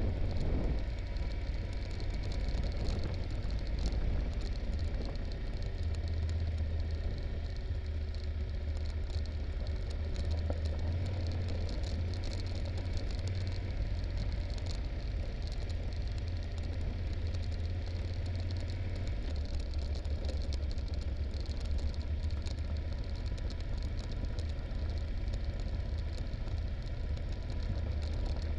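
Yamaha Super Ténéré's parallel-twin engine running low and steady at slow speed down a very rough gravel track, with rattling from the ride over the stones.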